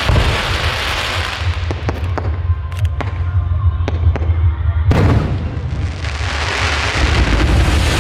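Aerial fireworks going off. A run of sharp cracks comes about two to four seconds in, then a loud burst about five seconds in that trails into a long crackling hiss, all over a constant low rumble.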